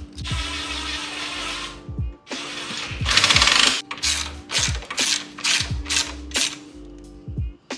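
Ratchet wrench clicking, in a long run of rapid clicks and then in short bursts, as bolts on a motorcycle crash cage are worked. Background music with a deep bass beat plays underneath.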